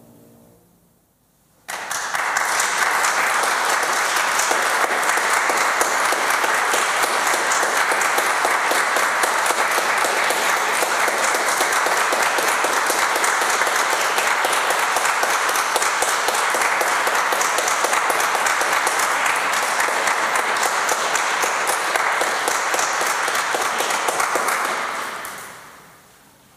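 Audience applause that breaks out suddenly after a second or two of quiet, holds steady, then dies away near the end.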